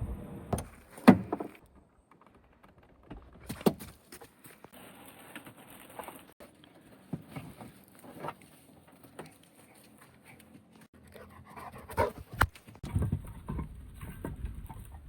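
A dog panting, with scattered clicks and knocks; the loudest knock comes about a second in.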